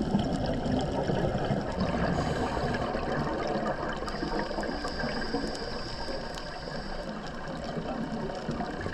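Underwater ambience: steady, muffled rushing water noise with scattered faint clicks.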